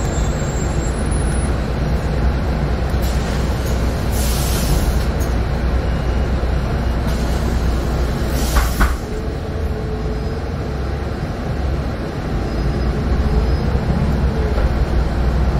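Cabin sound of a Solaris Urbino 18 III articulated city bus on the move: its DAF PR265U1 diesel engine running with a steady low rumble and road noise. Two short hisses come about four and eight and a half seconds in, the second the loudest moment, and a faint whine rises and falls in the second half.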